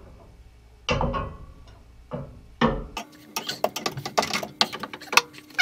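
Hands and a tool working on old threaded heating pipe: a couple of knocks, then from about three seconds in a fast run of metallic clicks and rattles.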